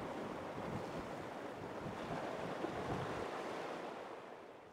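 Sea waves washing against a rocky shore, with wind buffeting the microphone, as a steady rushing noise that fades out near the end.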